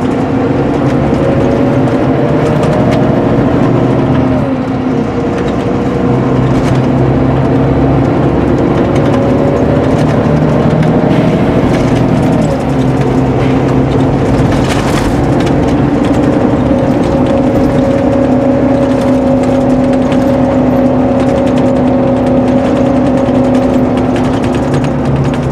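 Volvo B9R coach's engine heard from inside the passenger cabin, pulling away and working up through the gears. The engine note rises and then drops sharply twice, about four and twelve seconds in, as the I-Shift automated gearbox changes up, then holds steady at cruising speed, with light rattles from the cabin.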